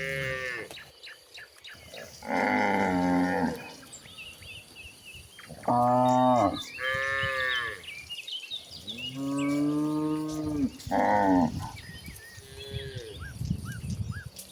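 Cattle mooing over and over, about six or seven long calls one after another, some deeper and some higher, from more than one cow. Faint bird chirps come in the gaps between calls.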